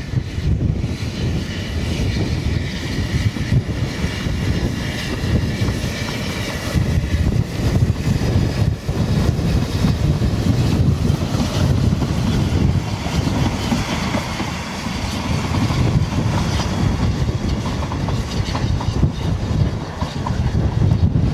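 Narrow-gauge steam tank locomotive Lyd hauling a short train of coaches past and away, under heavy wind buffeting on the microphone.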